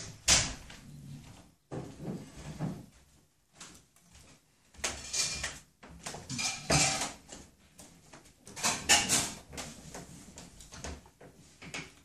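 Amazon parrot working at leafy branches with its beak, the leaves rustling and twigs crackling in irregular bursts.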